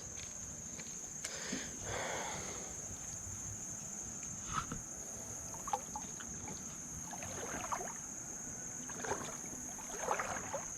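Steady high-pitched insect chirring from the creek-side vegetation, with scattered faint water sloshes and trickles every second or two.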